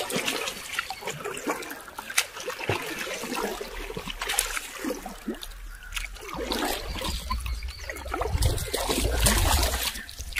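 Water splashing and trickling in irregular bursts as a hooked snakehead thrashes at the surface near the canoe. A low rumble builds in the second half.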